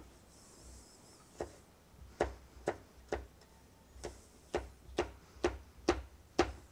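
A large kitchen knife slicing a red jalapeño on a plastic cutting board: a steady run of sharp knocks, about two a second, as the blade strikes the board, starting a little over a second in.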